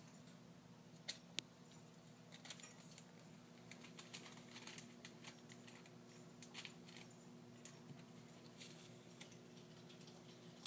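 Faint, scattered light clicks and taps of kittens' paws and claws on a tile floor as they play, with two sharper clicks just after a second in, over a steady low hum.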